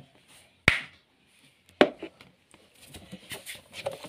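Two sharp knocks of hard plastic and metal parts of a knapsack sprayer's spray lance being handled, about a second apart, followed by lighter scattered clicks and rubbing as the parts are worked by hand.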